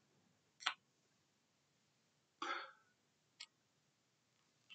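Near silence: quiet room tone with a few faint short noises, a click about half a second in, a brief soft sound around two and a half seconds, and a small tick a second later.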